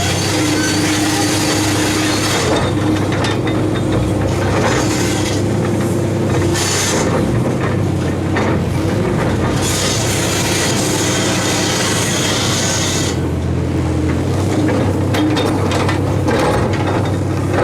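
Diesel engine of a Fiat Hitachi FH450 excavator running steadily under load, with stretches of harsh scraping and rattling noise from the machine working gravel.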